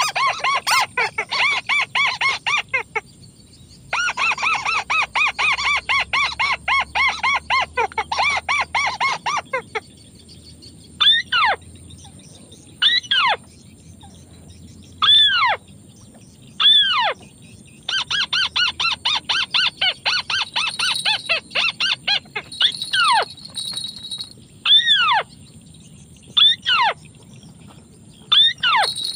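White-browed crake calls: fast chattering runs of notes, broken by single loud calls that fall steeply in pitch, about one every two seconds.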